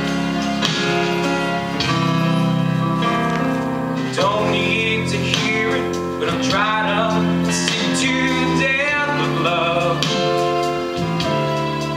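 Music: the instrumental passage of a slow pop ballad, with sustained chords and a wavering lead line with vibrato through the middle.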